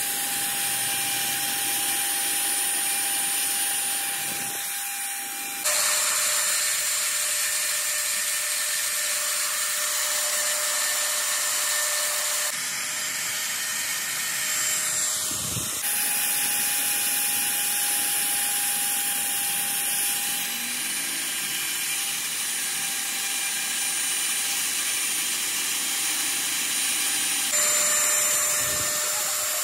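Drill press running and drilling a hole into a truck engine piston: a steady motor whine over cutting noise, its pitch stepping down and back up a few times.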